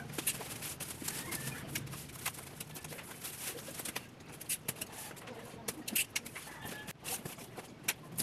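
Plastic bubble wrap rustling and crackling as it is pulled off cardboard boxes, with scattered sharp crackles and knocks as the boxes are handled.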